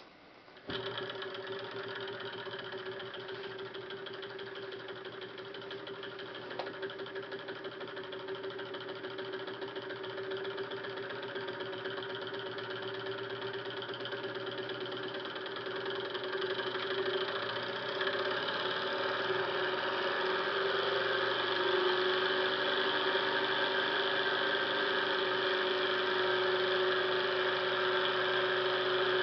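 Twin-cylinder gamma-type Stirling engine, on new ball bearings, starting up about a second in after a turn of its flywheel by hand. It then runs fast with a steady mechanical whir and a fixed hum, slowly growing louder.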